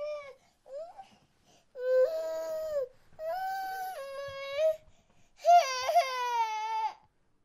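Baby crying: a short cry and a brief whimper, then three long wailing cries with short breaths between them, the last one the loudest and wavering in pitch.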